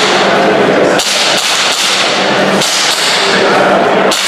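Airsoft pistol firing a run of sharp, snapping shots as the shooter engages the targets.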